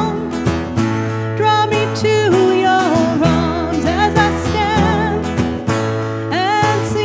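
Background music: a slow song with acoustic guitar and a wavering sung melody line.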